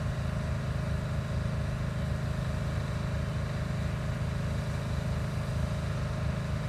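An engine running steadily at an even speed, a low throb that does not change.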